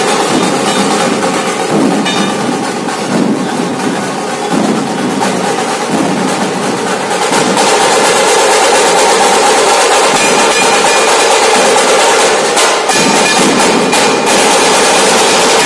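A Nashik dhol troupe of large barrel dhols and small tasha drums played with sticks, a loud, dense and continuous beat. It grows louder and fuller about seven seconds in.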